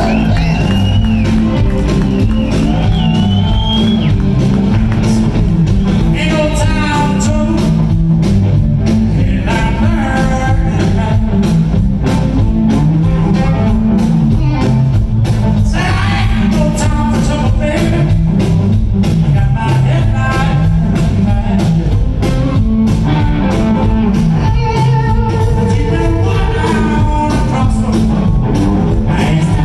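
Live blues-rock band playing in a large hall: an electric guitar lead with bent notes over electric bass and a steady drum beat.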